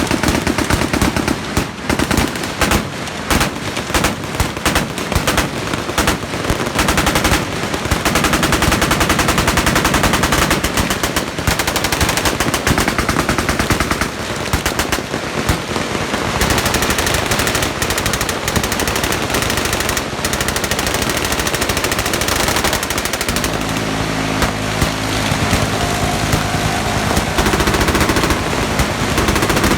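Many machine guns firing at once along a firing line, continuous overlapping automatic bursts that never pause. A steady low hum joins in about three-quarters of the way through.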